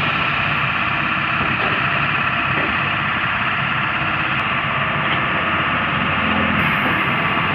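Dump truck's diesel engine running steadily while its hydraulic hoist tips the body up, soil sliding out the back.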